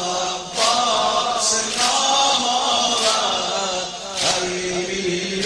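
A man chanting a Shia mourning lament (noha) in a slow, wavering melody, with a sharp beat about every second and a bit.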